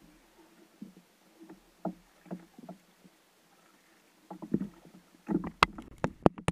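Knocks and bumps on a kayak over a faint, low, steady hum, becoming louder and sharper in the last two seconds with a quick run of hard knocks.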